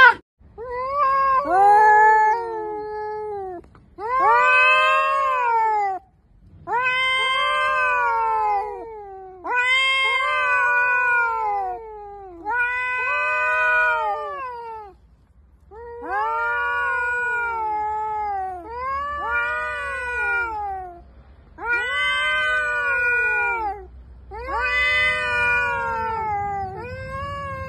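Ginger tabby cats yowling in a face-off: about nine long, drawn-out wailing calls, each two to three seconds, rising and then falling in pitch, with short pauses between. This is the threat yowling of a territorial standoff between cats.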